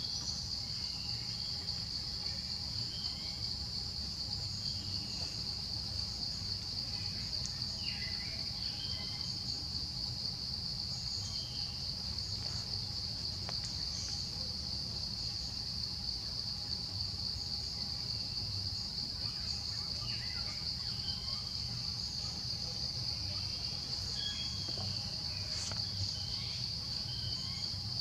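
Steady high-pitched insect chorus droning without a break, over a steady low rumble, with faint scattered chirps now and then.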